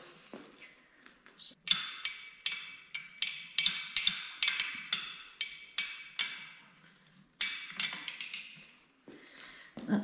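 Metal-on-metal clinks with a short bright ring: a small pedal spanner and a flat pedal knocking together as the pedal is spun off a mountain bike crank arm by hand. The clinks come quickly and irregularly, several a second, for about six seconds.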